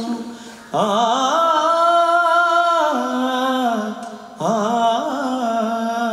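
A man sings a Kannada song without accompaniment, holding long, wavering notes with no clear words. Two phrases each start with a quick slide up in pitch: one about a second in, the other just past the middle.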